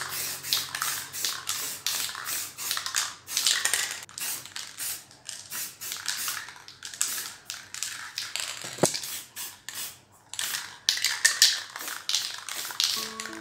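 Aerosol spray paint cans spraying in many short hissing bursts with brief gaps between them, as the paint is laid down in quick strokes.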